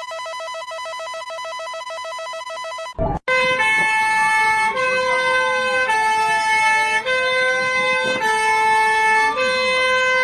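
Electronic emergency-alert alarm sounds: a rapidly pulsing buzzer tone for about three seconds, then a brief crackle and a slow siren wail that slides up and down over steady synthesized tones changing in steps.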